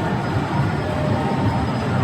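Steady, loud hall din: a dense wash of crowd and machine noise with a low rumble underneath and faint tones above it.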